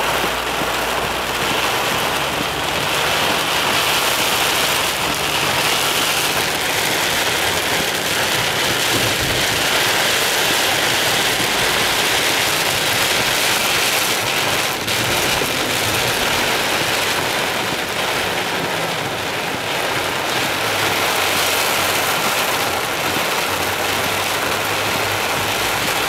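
Hard rain drumming steadily on a car's roof and windshield, heard from inside the cabin, with the car's engine humming low underneath.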